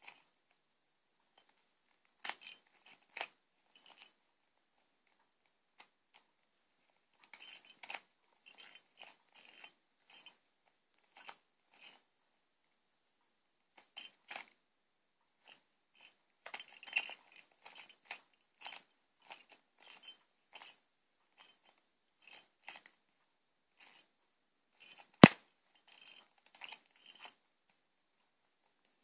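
Plastic layers of a stiff 3x3 Rubik's cube being twisted by hand: irregular clicking and scraping turns in quick clusters, with one sharp, much louder click near the end.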